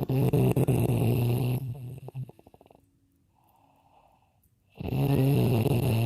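A man snoring: two long snores, each a steady low drone. The first breaks into a fluttering rattle as it fades out about two seconds in. Between the snores comes a soft breath.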